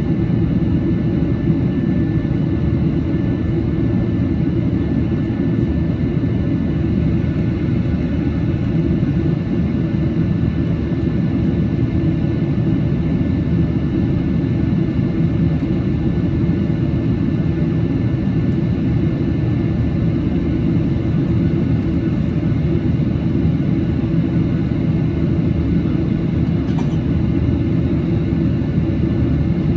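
Boeing 737-800 making a steady, unbroken rumble, with several faint steady whining tones above it.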